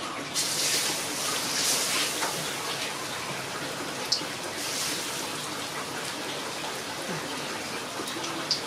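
Hot oil in a wok sizzling as crumbed barramundi pieces are lowered in, the sizzle swelling each time a piece goes in. Two light clicks, one partway through and one near the end.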